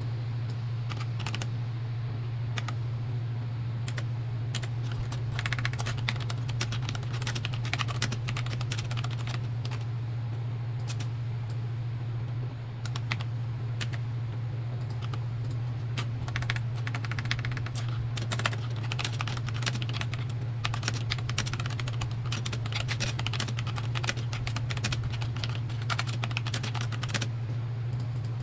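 Typing on a mechanical keyboard: fast, irregular runs of key clacks, with short pauses between bursts, over a steady low hum.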